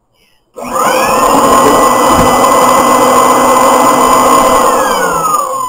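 Cat deterrent's electric motor starting suddenly about half a second in with a rising whine, running loudly and steadily for about four seconds, then winding down in pitch as it shuts off near the end.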